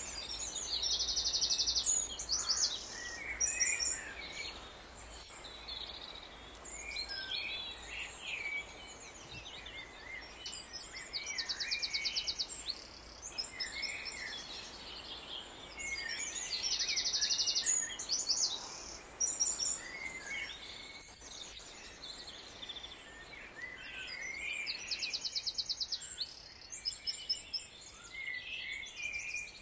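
Wild songbirds singing and calling: varied high chirps and whistles throughout, with a short, high, rapid trill repeating four times.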